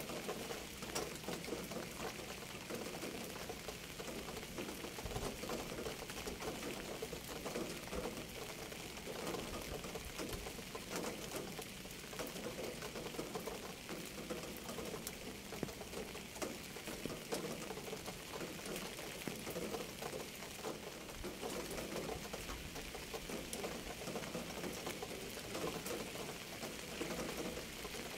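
Steady rain falling, a dense, even patter of many small drops striking a surface.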